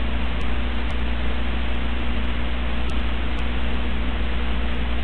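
Steady hiss from the narration microphone with a low electrical hum underneath; no speech.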